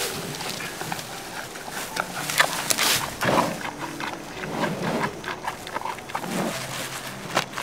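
Giant panda crunching and chewing bamboo, with irregular sharp cracks and snaps as it bites the stalk; the loudest cracks come about two and a half and three seconds in, and again near the end.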